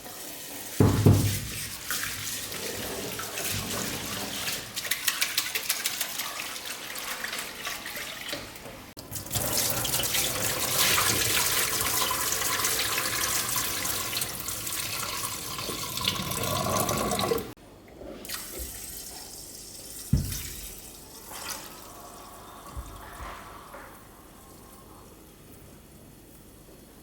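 Water running from a tap into a sink, with a knock about a second in. The flow gets stronger about nine seconds in and is shut off suddenly after about seventeen seconds, followed by a few light knocks.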